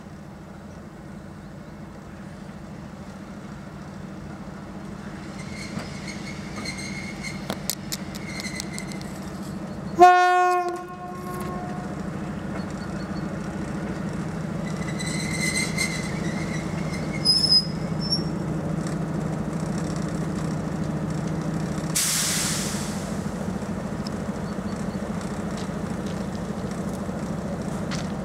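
SU42 diesel locomotive approaching slowly, its engine running with a steady drone that grows louder as it comes closer. About ten seconds in it sounds one short, loud horn blast. Faint high wheel squeals come and go twice, and a short hiss follows later.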